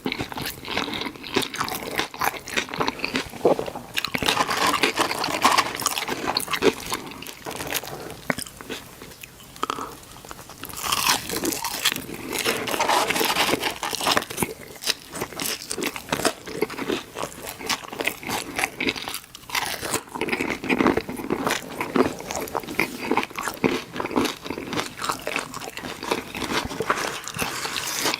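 Close-miked eating of fast food: a person biting and chewing, with a dense run of crunching and crackling. The crunching is harshest about eleven seconds in.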